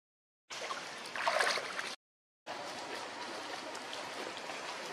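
Outdoor forest ambience with a steady, watery hiss. Before it comes a short clip of noise with a louder swell that cuts off abruptly, followed by a brief silence.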